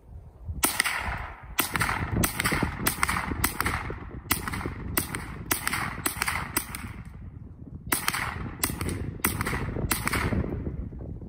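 Scoped rifle fired in quick succession, about two shots a second, each report trailing off in a short echo: a string of about a dozen shots, a pause of about a second, then four more.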